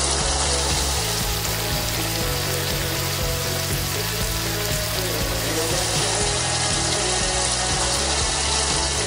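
Background music with low notes changing about once a second, over a steady crackling hiss.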